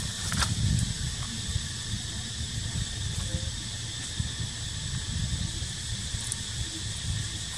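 Forest ambience: a steady high drone of insects over a low rumble, with a couple of faint clicks at the very start.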